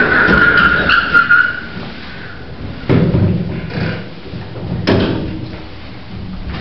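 Hospital lift doors sliding shut: a steady high whine over the first second and a half, then two heavy clunks about two seconds apart as the doors close and the lift machinery engages.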